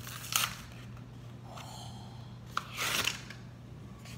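Hot Wheels blister pack being torn open by hand: cardboard backing ripping and plastic bubble crinkling in a few short bursts, the loudest about three seconds in.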